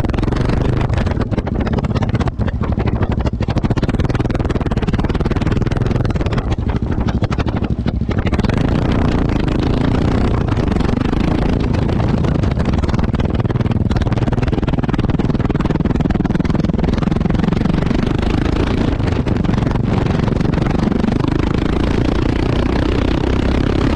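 Yamaha XT660X single-cylinder four-stroke engine and exhaust running under way. The pitch rises and falls with the throttle, and the engine revs up near the end.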